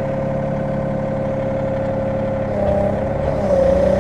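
Sany SY35U mini excavator's diesel engine running steadily. About two and a half seconds in, the engine note dips and labours as the hydraulics take load, likely moving the thumb attachment, then picks back up.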